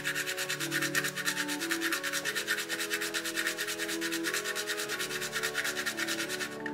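Hand-turned nutmeg grinder grating a whole nutmeg kernel: a rapid, even rasping that stops near the end. Soft background music plays underneath.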